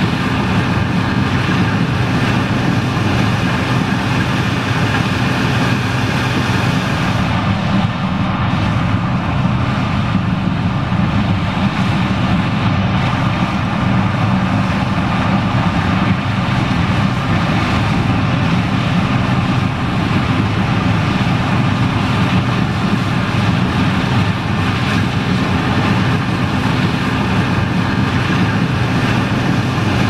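John Deere 9560STS combine running steadily while harvesting corn and unloading through its auger, with the grain-cart tractor working alongside: a constant low engine drone with steady hum tones over an even mechanical hiss.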